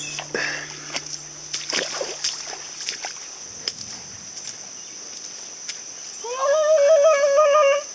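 Footsteps squelching and splashing through mud and shallow water, over a steady high drone of jungle insects. About six seconds in, a long wavering call rises and holds for nearly two seconds.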